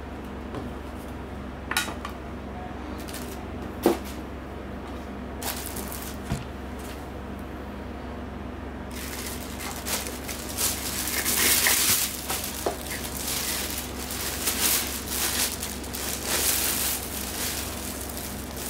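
A few sharp clicks and knocks of a hard plastic monitor stand base being handled and set down, the loudest about four seconds in. Then, from about nine seconds in, plastic film crinkles and rustles as the monitor panel is slid out of its protective bag.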